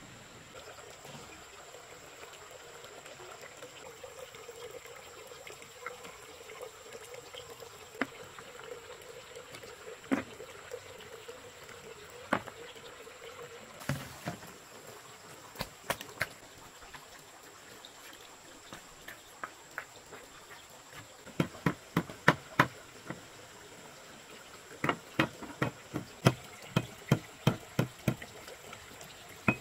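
Water splashing and trickling as plastic basins are rinsed, with scattered single knocks. From about two-thirds of the way in, a knife chops on a wooden cutting board, about three strokes a second, in two quick runs.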